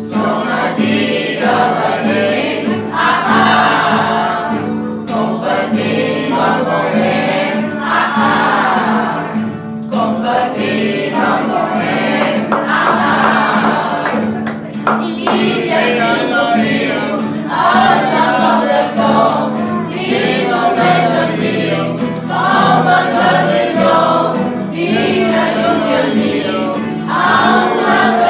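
A large mixed group of amateur voices singing a song together in Catalan, accompanied by two acoustic guitars.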